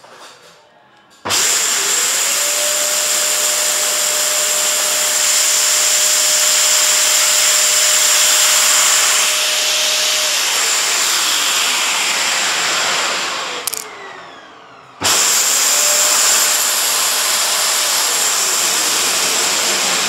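Vacuum cleaner switched on about a second in: its motor's tone rises, then holds steady under a loud rush of air. About ten seconds in, the motor winds down with a falling tone. A few seconds later it starts up abruptly again and runs, beginning to wind down near the end.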